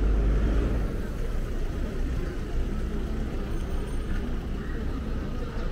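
Street traffic: a motor vehicle's low engine rumble passing close, loudest in the first second, then easing into the steady noise of city traffic.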